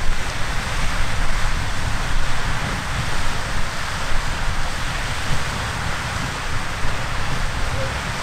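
Riverside Geyser erupting: a steady, loud rushing hiss of the water jet and steam, with spray falling back into the river. A choppy low rumble of wind buffets the microphone.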